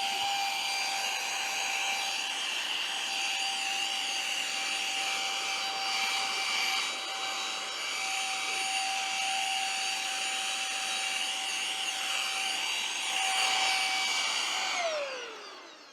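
Silvercrest SHM A1 cordless handheld mini vacuum cleaner running steadily with a high whine. Near the end it is switched off and the whine falls in pitch as the motor spins down.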